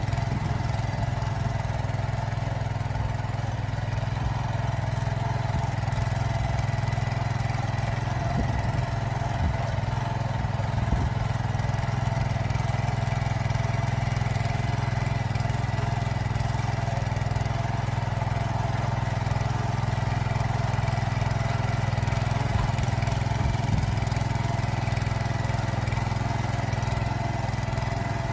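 Power tiller engine running steadily while tilling a field.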